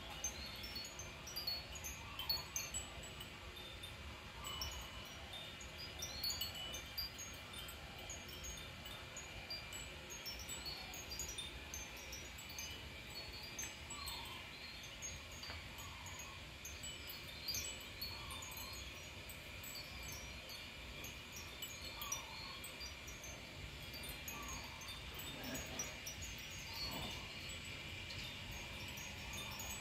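Light, irregular high tinkling notes, like small chimes, scattered throughout over a faint steady high tone and a low background rumble.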